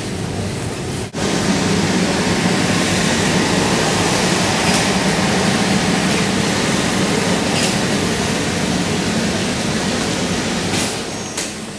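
Steady mechanical din of many industrial sewing machines running together on a garment-factory floor. It dips briefly about a second in and comes back louder, with a few short high hisses later on.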